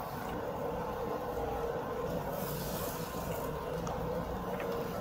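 Steady hum of the exhaust hood over a tabletop grill, with a few faint clinks of cutlery.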